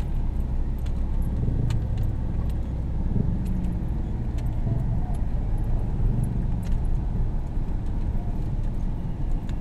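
Car driving slowly, heard from inside the cabin: a steady low engine and road rumble, with frequent small clicks and rattles.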